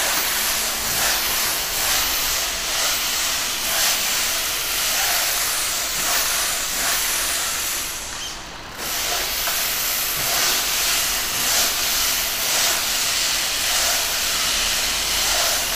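Kärcher steam cleaner jetting steam through its floor nozzle with a steady hiss. The hiss drops away for under a second about eight seconds in, then resumes.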